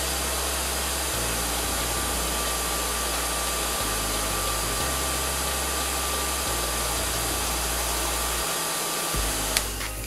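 Kaiser KHD-5320 hair dryer running, a steady rush of air blowing into a wind-meter probe. It stops with a sharp click near the end.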